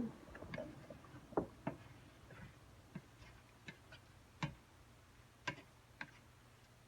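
Faint, irregular sharp ticks and clicks, roughly one every half second to a second, over a low steady hum.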